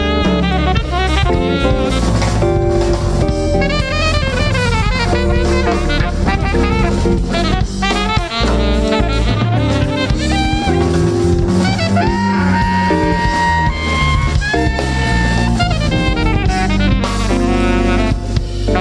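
Live jazz quartet playing: saxophone, electric guitar, electric bass and drum kit, with fast, winding melodic runs over a moving bass line and busy drums.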